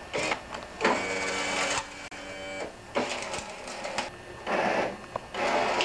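Small electric chute-adjuster motor on a tracked Honda snowblower, whirring in several short runs of about a second each as it turns the discharge chute, stopping and starting between runs.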